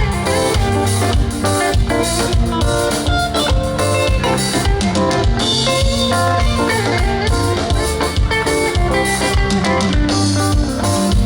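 Live band music with a steady drum-kit beat, bass and guitar, played between sung lines of an upbeat Ugandan pop song.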